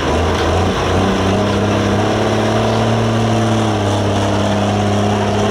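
Limited Pro Stock pulling tractor's turbocharged diesel engine running hard at high revs; its pitch steps up about a second in, then holds steady.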